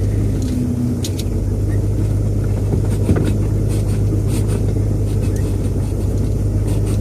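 1966 Ford Thunderbird's V8 running, heard from inside the cabin as a steady low hum with a few faint clicks.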